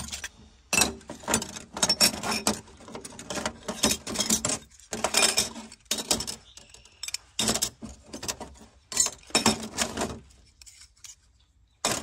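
Small metal gauges and tools clinking and jangling as they are rummaged through, a quick run of clinks that dies away about ten seconds in.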